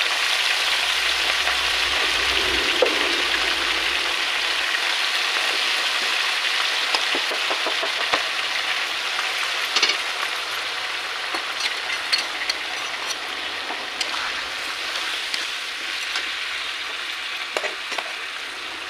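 Chicken pieces and potato chunks sizzling steadily in hot oil in a metal kadai, with scattered clicks of a spatula against the pan. The sizzle slowly weakens.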